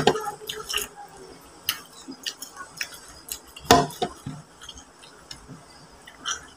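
Close-up eating sounds of a cooked mud crab: chewing, with wet mouth clicks and smacks and scattered sharp clicks from the shell being handled. One louder crack comes about three and a half seconds in.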